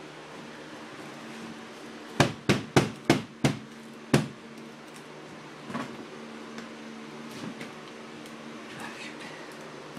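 A bus window pane knocked into its rubber gasket: six quick, sharp knocks about two seconds in, then a fainter one a little later.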